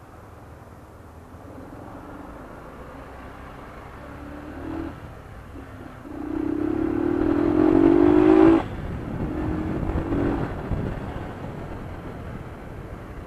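Motorcycle engine under way in traffic: it pulls up through the revs with a rising note about six seconds in, cuts off sharply at a gear change after a couple of seconds, then pulls again briefly before settling.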